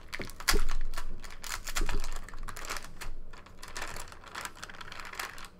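Foil trading-card pack wrapper crinkling and crackling in irregular bursts as it is pulled open by hand.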